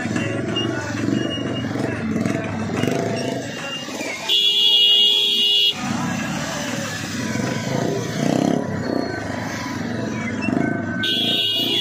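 A vehicle horn sounds twice with a loud, high, steady blast: once for about a second and a half a few seconds in, and again briefly near the end. Between the blasts, people talk and engines idle.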